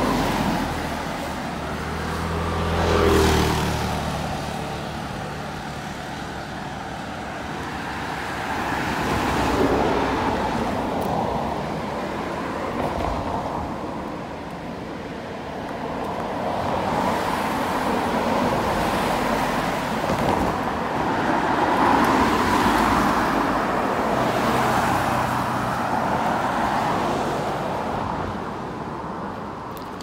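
Road traffic: vehicles passing one after another, each swelling and fading. The loudest passes about three seconds in, with a low engine hum.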